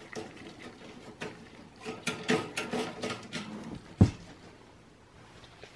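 Clicks and knocks of the bare sheet-steel chassis of an HP ProDesk 600 G1 small-form-factor PC being handled and turned, with one heavy thump about four seconds in.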